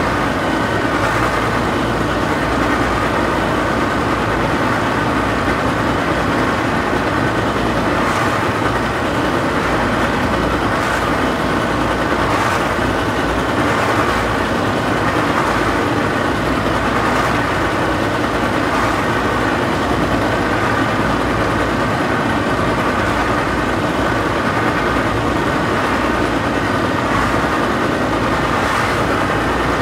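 Boat outboard motor idling steadily.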